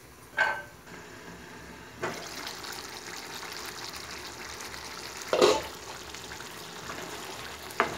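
Chicken frying in ghee and masala in a pan, a steady sizzle from about two seconds in. A glass pan lid gives a short ringing clink just after the start, and there is a sharp knock about halfway through.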